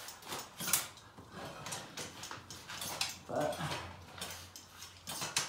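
Rabaconda tire-changer arm levering a dirt bike tire's bead around the rim: a run of sharp metal clicks and rubber scrapes and knocks from the tool and tire stand.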